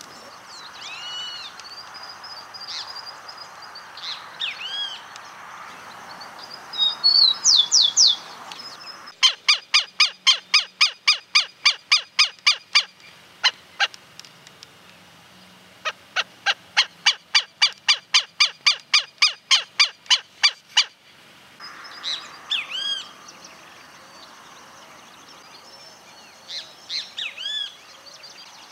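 Green-barred woodpecker calling: two long runs of loud, rapid, evenly spaced calls, the first about four seconds long and the second about five, with a few single notes between. Other birds' short chirps and whistles are heard before and after the runs.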